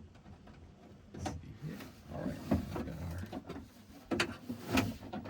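Irregular knocks, clicks and rattles of a hand working a door-handle nut loose inside a pickup truck's door, starting about a second in.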